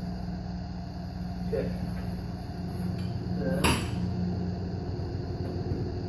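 A single sharp knock, like a hard object set down or struck, a little past halfway, over a steady low hum.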